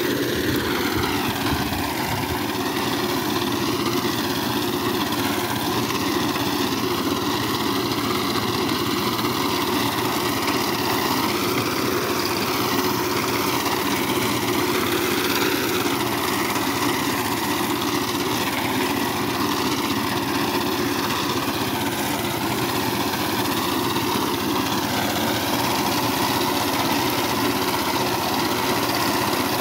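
Small engine of a walk-behind power tiller running steadily while its front reaper attachment cuts standing wheat.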